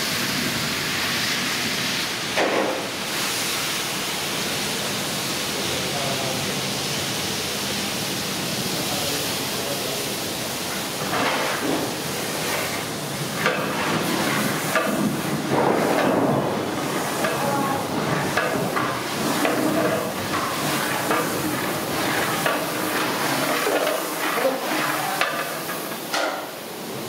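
A large aluminium pot of water boiling hard over a wood fire, a steady hiss of steam and bubbling. From about eleven seconds in, irregular knocks, scrapes and splashes join it as rice goes into the pot and a long metal ladle stirs it.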